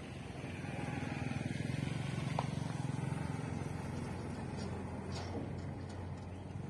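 Heavy truck diesel engines running as the trucks crawl over a loose sandy road, a low steady drone that swells about two seconds in.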